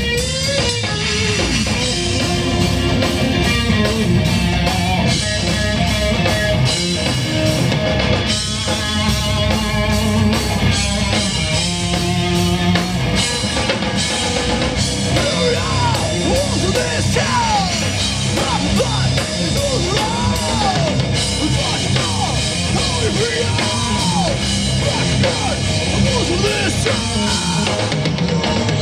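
Live rock band playing loud: drum kit, bass and electric guitars. In the second half a lead line bends up and down in pitch.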